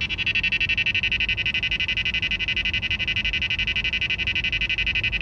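Radar detector sounding a steady, rapid K-band alert beep for a 24.137 GHz signal. The alert is a false one, set off by a car's blind-spot monitoring sensor rather than police radar.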